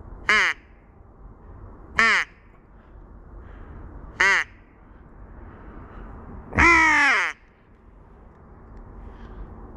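Four loud, harsh crow caws about two seconds apart, each falling in pitch, the fourth longer and drawn out, as used to lure crows in during a crow hunt.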